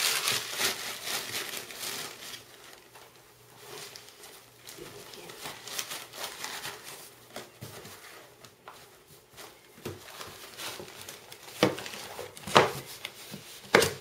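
Newspaper being crumpled and stuffed into the sides of a cardboard box, loudest in the first couple of seconds, then quieter rustling. Near the end come a few sharp knocks as the cardboard box is handled.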